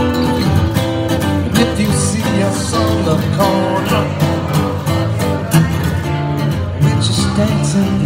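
Steel-string acoustic guitar strummed in a steady rhythm, with some singing over it.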